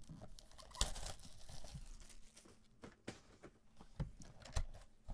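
Plastic shrink wrap being torn and peeled off a cardboard trading-card box, crinkling, with a sharp knock about a second in and a few lighter knocks later as the box is handled.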